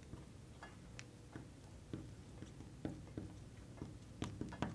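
Faint, irregular ticks and squeaks of a marker writing on a glass lightboard.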